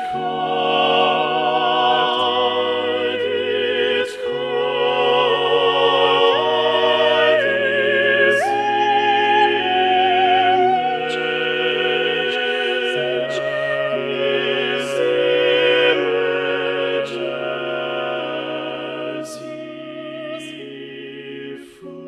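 Unaccompanied five-part choral singing, every part multitracked by one male singer, on the words 'It caught his image, his image, as he flew.' Slow sustained chords sung with vibrato change every second or two over a low bass line, and the sound grows softer near the end.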